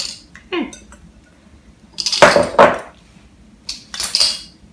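Kitchen things handled on a granite countertop: a few short clicks and clatters, and a louder scrape about two seconds in, as a plastic cutting board is slid across the stone.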